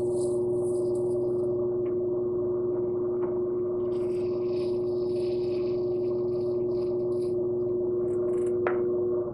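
Electric pottery wheel motor running with a steady hum as the wheel spins. From about halfway through, a wooden tool scrapes intermittently at wet clay at the base of a thrown cup, with a sharp click near the end.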